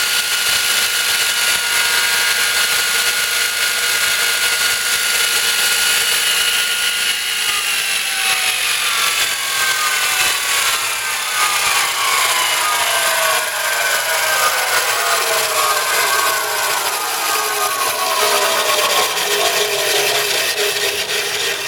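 Baldor 1.5 horsepower three-phase 48-by-2-inch belt sander running at speed: a steady whine over a loud hiss from the belt. About seven seconds in the whine starts falling steadily in pitch as the machine winds down.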